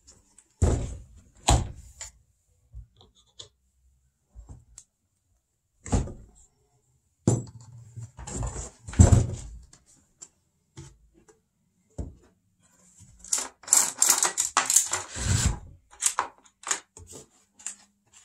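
Clinks, knocks and clatter of a cordless chainsaw's bar, chain and plastic side cover being handled and fitted onto the saw on a wooden workbench, with a denser spell of rattling a few seconds before the end.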